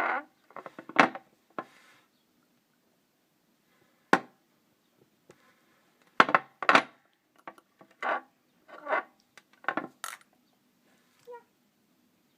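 A series of irregular knocks and clinks from perfume bottles and their caps being handled and set down together on a hard surface.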